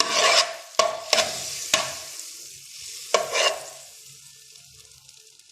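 A utensil stirring and scraping butter as it melts in a hot pot, with a light sizzle; several quick strokes, the last one about three seconds in, then the stirring stops and only a faint hiss remains.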